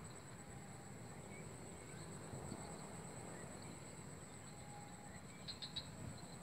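Insects trilling in one steady, high, finely pulsing note, over a faint low rumble. A short cluster of faint high clicks comes about five and a half seconds in.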